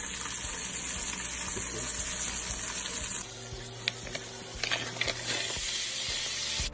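Butter sizzling in a cast-iron skillet, a steady hiss that drops a little about three seconds in, with a few light clicks after that.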